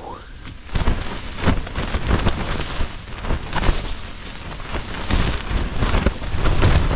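Naturehike Cloud Tunnel 2 tent's fabric flapping and cracking in gusting storm wind, with rain pelting the flysheet. The gusts rumble louder toward the end.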